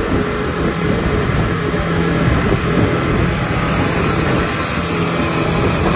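Outboard motor running at high speed, mixed with loud rushing water from the hull and wake, as a fishing boat planes across open sea.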